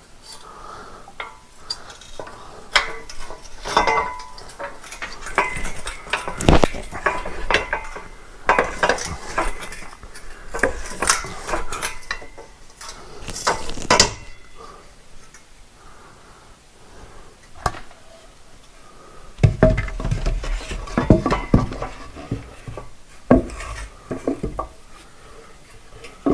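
Steel masonry prop being handled and adjusted: repeated metal clinks and knocks from its tubes, pin and screw collar. The clatter is dense for about the first half, stops suddenly, and comes back near the end with some heavier thuds.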